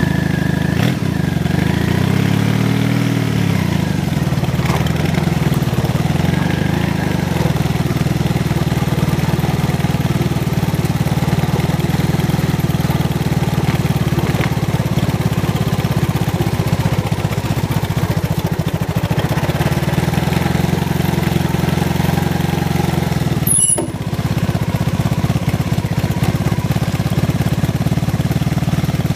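Motorcycle engine running, picked up close by a camera mounted on the bike. It revs up and back down once about two to three seconds in, then runs steadily at low speed, with a brief drop in sound about three-quarters of the way through.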